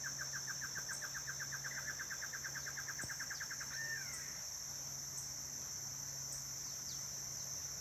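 A steady high-pitched chorus of insects, with a bird giving a rapid series of repeated notes that speeds up and stops a little under four seconds in, ending on a short slurred note. A few faint short whistles are heard later.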